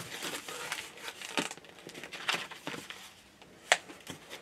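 Packaging being handled while a model locomotive's box is opened: irregular crinkling and rustling, with one sharp click a little under four seconds in.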